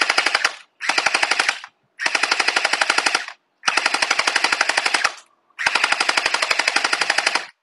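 Custom Chermory Glock 17 gel ball blaster firing five rapid bursts of about a dozen shots a second, each burst a fast string of sharp snaps. The long extended barrel has disabled its blowback.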